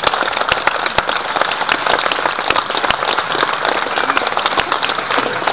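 Audience applauding: loud, dense clapping from many hands.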